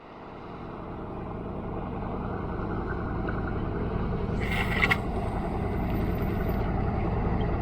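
A steady low rumble of outdoor harbour background noise fades up after a cut. A short scraping rattle comes about four and a half seconds in.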